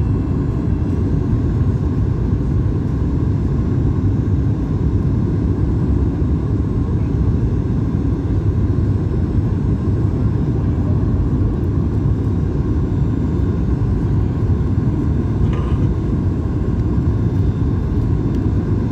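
Steady low cabin rumble inside a Boeing 737 MAX 8 airliner, heard from a window seat, with its CFM LEAP-1B engines running.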